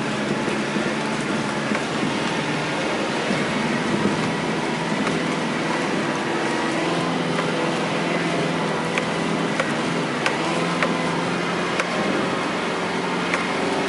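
A car driving slowly over a rough, rocky dirt road, heard from inside the cabin: a steady engine hum and tyre noise, with scattered sharp knocks and rattles as the car rides over the ruts and stones.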